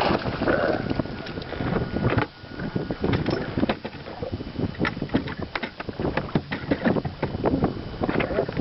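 Water splashing and slapping against a small fishing boat in many short, irregular splashes, with wind buffeting the microphone.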